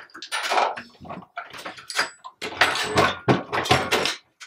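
Hornady Lock-N-Load AP progressive reloading press being cycled by its handle: clanks and rattles of the press and cartridge cases in about four bursts roughly a second apart.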